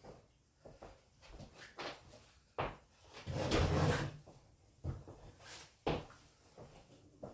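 Light knocks and clicks of small objects being handled and set down, with one louder scraping rustle about halfway through.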